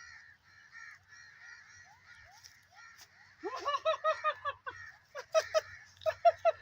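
Birds calling: quick runs of loud repeated calls about three and a half seconds in, again around five seconds and near the end, over a constant chatter of many small birds chirping.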